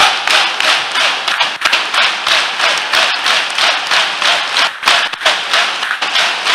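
Hands clapping in a steady, fast rhythm, about three to four claps a second, as part of loud, fervent prayer.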